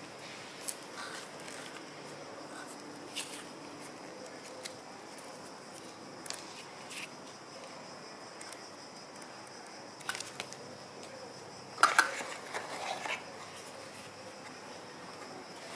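Unboxing handling sounds: paper rustling as a small instruction booklet is taken out and leafed through, and light clicks and knocks of cardboard and plastic as a plug charger is lifted out of its box. The loudest is a short cluster of sharper knocks about three-quarters of the way through, over a faint steady hiss.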